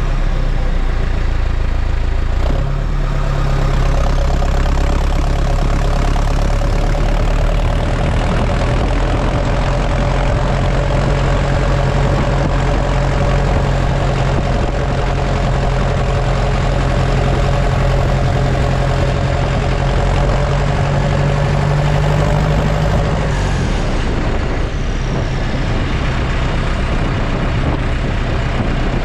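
New Holland T5050 tractor's four-cylinder turbodiesel running steadily while driving, heard from beside the exhaust stack. About 23 seconds in, the engine note changes and eases off slightly.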